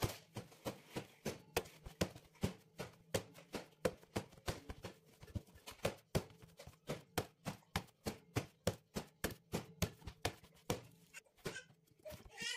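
Steamed-bun dough being kneaded by hand in a metal pot: rhythmic slaps and presses, about three a second, that thin out about a second before the end. The dough is at the end of kneading, smooth and no longer sticky.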